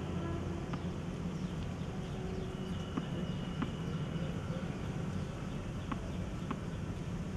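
Steady low hum of outdoor court ambience, with a few faint sharp knocks of a tennis ball, some about half a second apart, as a player bounces the ball before serving.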